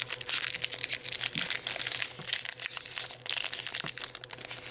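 Pokémon trading cards and their pack wrappers being handled and sorted by hand: a run of irregular rustling and crinkling, over a faint steady hum.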